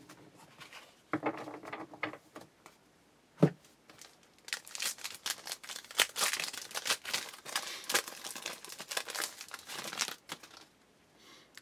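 Foil wrapper of a hockey card pack being torn open and crinkled by hand: a sharp click, then several seconds of dense crackling.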